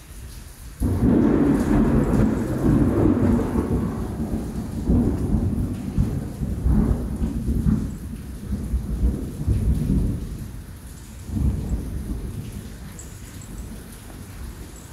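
A long roll of thunder over rain. It starts suddenly about a second in, rumbles in uneven waves, swells once more near the end and then dies away.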